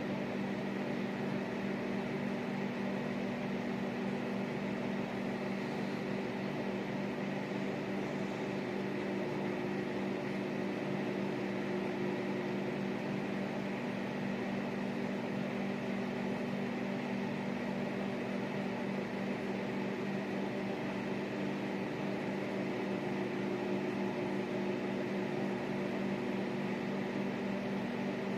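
Microwave oven running with a steady, unchanging hum, heating two whole eggs in their shells.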